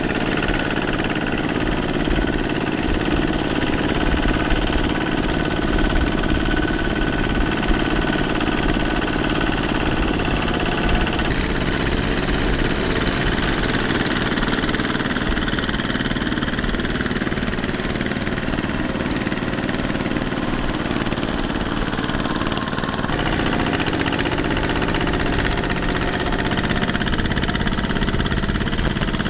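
Tractor engine running steadily. Its sound changes abruptly about eleven seconds in and again about two-thirds of the way through.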